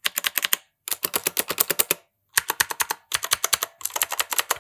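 Typing on the AOC GK410 budget mechanical keyboard: fast runs of crisp key clicks, about ten a second, broken by short pauses.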